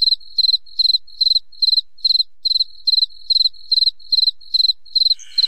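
A cricket chirping in a steady, even rhythm: short high-pitched chirps, about two and a half a second.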